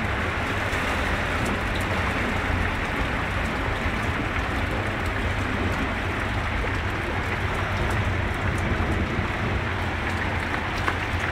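Heavy rain falling on a flooded street: a steady hiss with scattered drop ticks over a constant low rumble.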